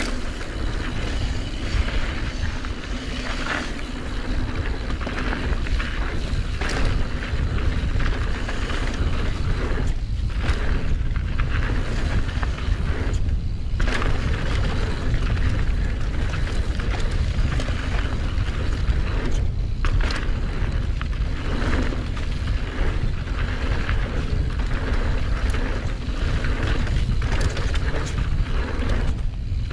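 Wind rumbling on an action camera's microphone during a mountain bike descent of a dirt flow trail, with tyre noise and the bike rattling over bumps. Scattered knocks and a few short drops in the noise.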